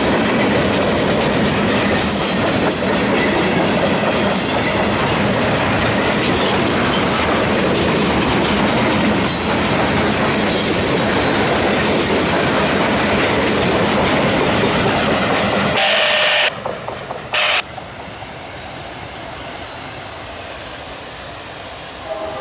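Freight train's gondola cars rolling past at close range, a loud steady clatter of wheels on rail with some wheel squeal. About three-quarters of the way through the end of the train goes by with a couple of short loud noises, and the sound drops to a much quieter steady rumble.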